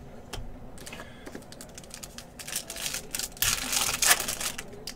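Foil trading-card pack being torn open and its wrapper crinkled, loudest from about two and a half to four and a half seconds in, after a few light clicks and taps of cards and packs being handled.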